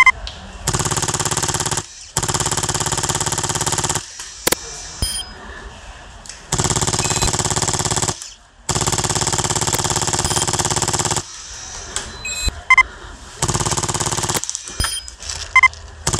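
HPA airsoft light machine gun, a Polarstar-driven Stoner 96, firing long full-auto bursts: about six strings of one to two and a half seconds each, with short pauses between.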